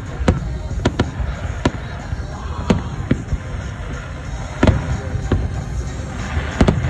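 Aerial firework shells bursting, about ten sharp bangs at uneven intervals, the loudest about two-thirds of the way in and near the end, over a steady low rumble.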